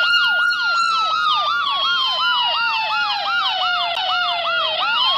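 Smartphone anti-theft app's siren alarm sounding from the phone's speaker: about five quick falling sweeps a second over a long tone that slowly slides down in pitch and jumps back up near the end. It is the alarm set off remotely by an 'alert' text-message command.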